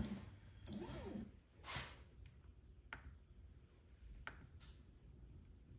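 A few faint, separate clicks from the control knob on a Compass handheld CNC router's control board, worked by hand while the X and Y axes are zeroed; the router is not running.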